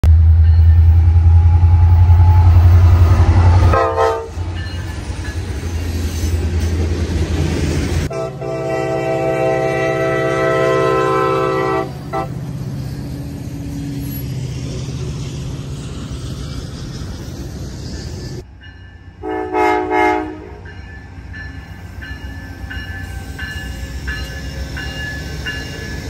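Train air horn sounding a short toot, then a long blast of about four seconds, and after a sudden cut two short blasts, over the low rumble of a passing train.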